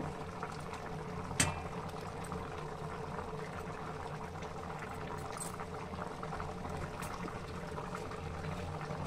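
Liquid boiling among grated carrots in a wide steel pan on high flame, a steady bubbling sizzle as the carrots' water cooks off for carrot halwa. A single sharp click comes about one and a half seconds in.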